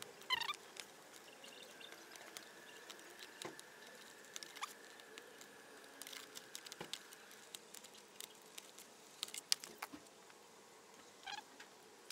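Faint, scattered small clicks and scrapes of a utility knife and fingers working thin electrical wires on a scooter's indicator wiring.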